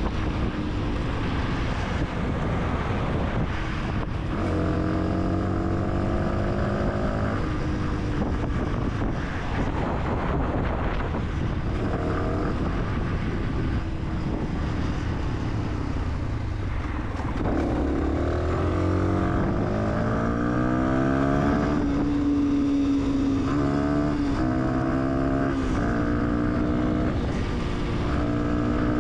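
Fantic 125 supermoto's engine pulling through the gears on the move, its pitch climbing and dropping back at each upshift, with several quick shifts in a row near the end. Wind rushes over the microphone throughout.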